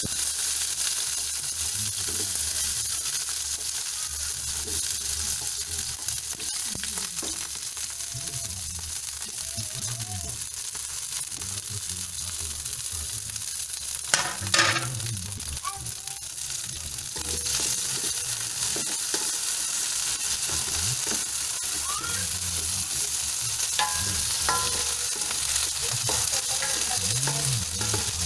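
Green beans (Baguio beans) sizzling in hot oil in a stainless-steel wok: a steady frying hiss, with a brief louder crackle about halfway through.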